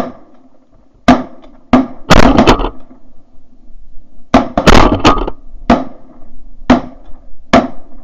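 A rapid volley of shotgun blasts from several hunters firing at incoming geese: about ten loud shots in eight seconds, some spaced out and some in quick bursts of two or three.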